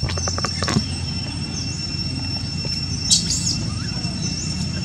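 Outdoor ambience: short bird chirps over a steady high-pitched whine and a low rumble, with a louder chirp about three seconds in and a few clicks of rustling in the first second.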